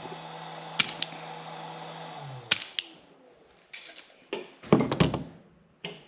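Tools and harness parts handled on a workbench: scattered sharp clicks and then a run of louder knocks, over a steady low hum that stops about two seconds in.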